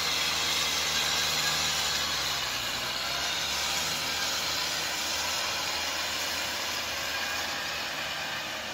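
Kubota M6040SU tractor's diesel engine running steadily under load as it pulls a rotary tiller through wet mud, with a steady hiss from the tiller churning the soil. The engine note dips briefly about two to three seconds in.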